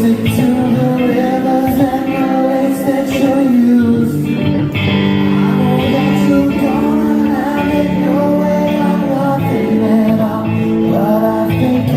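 Live band music: guitar-led playing with singing over it.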